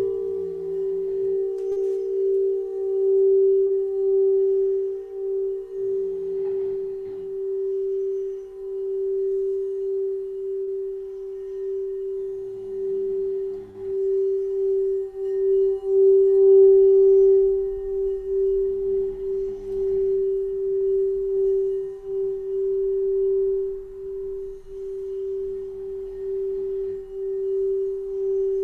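Singing bowl holding one steady, sustained tone that swells and wavers in loudness. A dog snores in the background, one low snore about every six or seven seconds.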